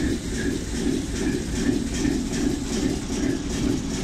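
British Rail Class 08 diesel shunter D4095 moving slowly past, its diesel engine running with a heavy low rumble and a rhythmic beat about twice a second.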